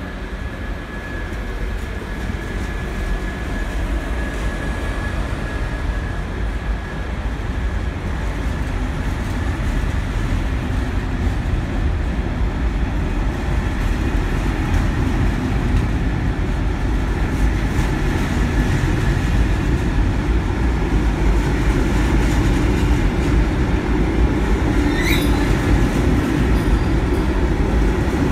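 Electric-hauled double-deck passenger train pulling slowly out past the platform, with a steady rumble of wheels and coaches that grows louder as the cars go by. A thin high whine is heard over it at first and fades out after several seconds. About 25 seconds in there is one brief high squeal.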